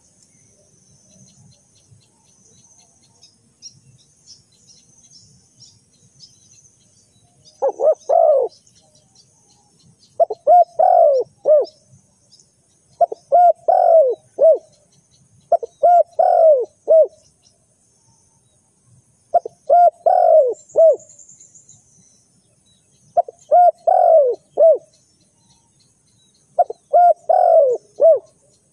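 Spotted dove cooing: about seven short phrases of two to four coos each, a few seconds apart, beginning about eight seconds in. A faint, high insect buzz comes before the first phrase.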